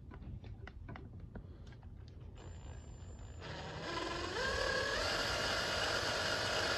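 Power drill boring into a broken soft steel thumb screw with a left-hand drill bit, run in reverse so the bit can catch and back the screw out. Faint clicks of handling come first; the drill starts about halfway through, and its whine rises in steps as it speeds up.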